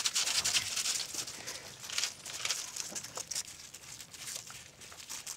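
Irregular crunching and clicking of steps on icy, snow-covered ground.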